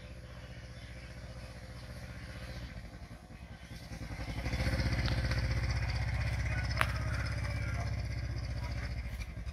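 Small step-through motorcycle running as it rides in, growing louder over the first few seconds, then idling steadily close by from about halfway. A single sharp click about two-thirds through.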